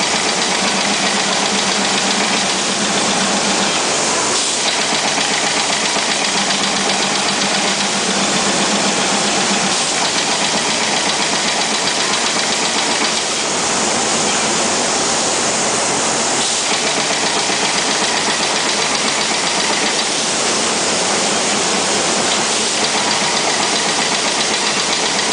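Fan guard middle-ring welding machine running its automatic rotate-and-weld cycle: steady, loud, noisy machine sound. The sound shifts every few seconds, and a low hum stops about ten seconds in.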